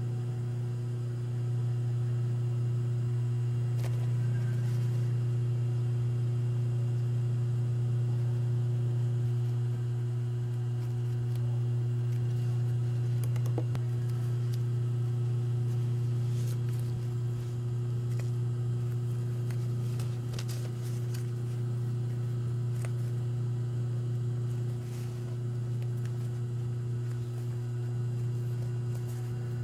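A steady low hum, with a few faint clicks from fabric and tape being handled.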